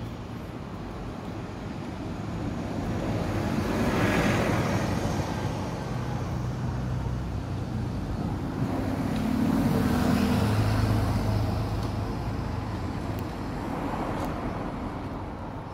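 City street traffic passing: a vehicle swishes by about four seconds in, then a bus drives past close with a low hum around ten seconds in, and another vehicle passes near the end.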